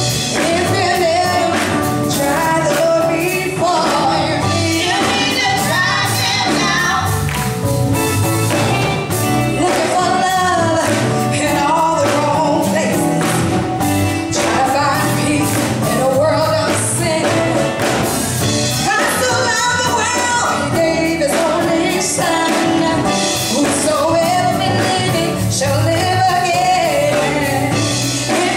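Live gospel song: three women singing into microphones in harmony over instrumental backing with a steady drum beat.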